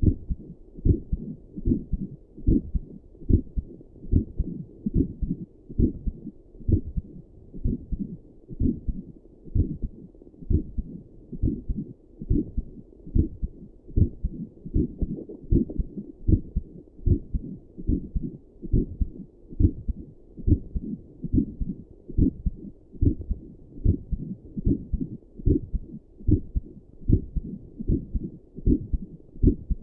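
A person's heartbeat picked up by a doppler and a stethoscope together: an even, steady rhythm of beats, low and muffled.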